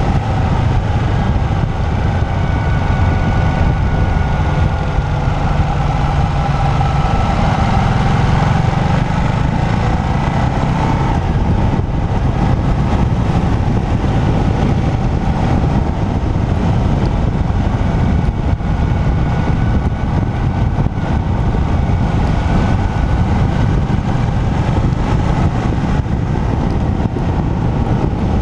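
Motorcycle engine running steadily while riding, mixed with a constant rush of wind and road noise.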